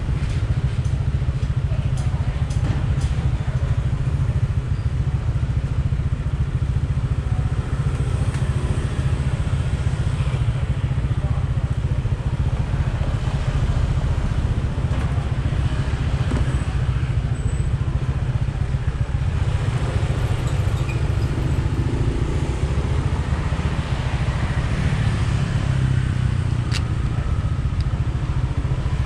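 Yamaha Aerox scooter's single-cylinder engine idling steadily while stopped, a constant low rumble.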